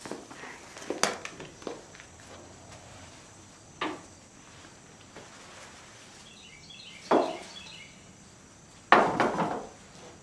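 Irregular wooden knocks and thumps as tobacco sticks are handled and set on the barn's tier poles and a worker moves on the beams: about five separate knocks, the loudest a quick cluster near the end.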